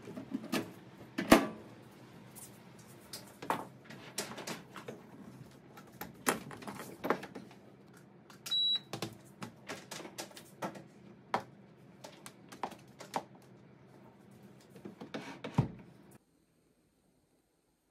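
Irregular knocks and clacks of a microwave oven being set down and shifted about on a kitchen shelf unit, with one short high electronic beep from the microwave about halfway through. The sound stops suddenly about two seconds before the end.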